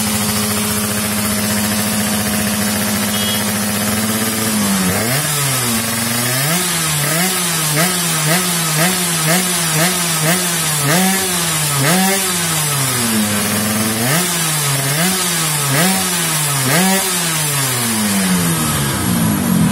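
Two-stroke underbone motorcycle engine idling steadily, then revved in over a dozen quick throttle blips, each rising and falling in pitch, about one a second, as the engine is being tuned.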